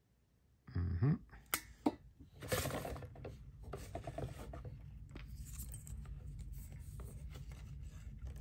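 Handling noise from a resin watch and strap being turned and flexed in the hands: a few sharp knocks and clicks about a second in, then rustling and irregular rubbing.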